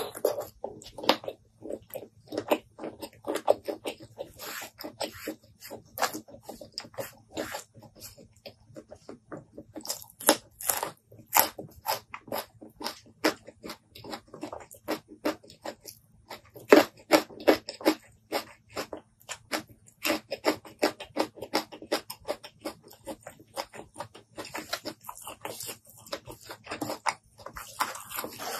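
Close-miked wet eating sounds: sticky chewing and lip-smacking, plus squelching fingers, as sauce-soaked rice and food are eaten by hand. It makes a dense run of quick clicks and smacks that pauses briefly about a third of the way in. A faint steady low hum lies underneath.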